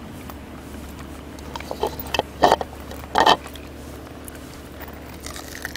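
Young Jindo dogs chewing and biting pieces of boiled pork, a handful of short bites, the loudest two about two and a half and three seconds in.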